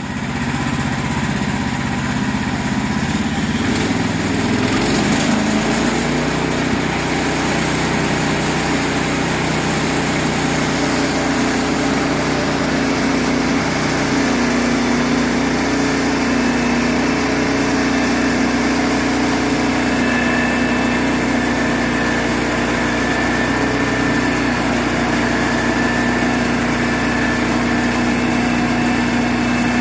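Sawmill engine running steadily. Its pitch shifts in the first few seconds and then holds, with a faint high whine joining about twenty seconds in.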